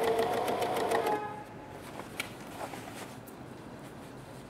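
Electric domestic sewing machine stitching a denim jeans hem, its needle working in a fast even rhythm. About a second in it winds down and stops short of the thick side seam, then only a faint click is heard.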